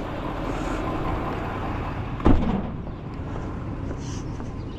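Steady vehicle rumble from an idling engine or passing traffic, with one sharp knock a little over two seconds in.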